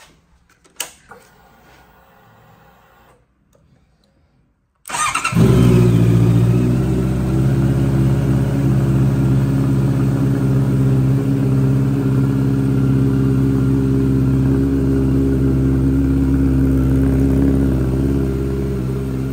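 Honda CBR650R's inline-four engine starting about five seconds in, revving briefly, then settling to a steady idle through its Black Widow aftermarket exhaust. Before the start there is a single sharp click about a second in.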